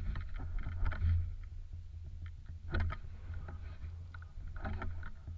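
Wind rumbling on a shotgun-mounted action camera's microphone, a steady low rumble, with a few short knocks.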